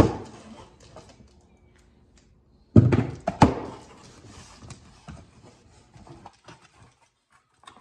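Cardboard box being opened by hand: a sharp snip of scissors on the packing tape at the start, then two loud scraping, rustling bursts about three seconds in as the flaps are pulled open, followed by light cardboard rustles and knocks as the packing inside is handled.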